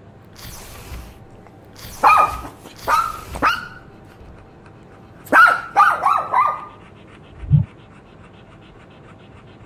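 Dog barking: three barks about two to three and a half seconds in, then a quick run of about five barks a couple of seconds later. There are two soft swishes near the start and a single low thump near the end.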